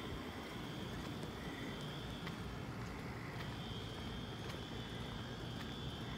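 Hotel fire alarm sounding, heard as a high steady tone that drops out for a couple of seconds partway through and then returns, over a steady low rumbling background noise.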